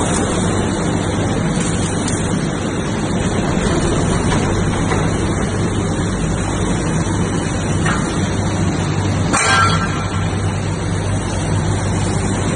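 A vertical compound crusher line with its belt conveyors and electric motors running: a steady machinery drone with a low hum. About nine and a half seconds in there is a brief, louder clatter.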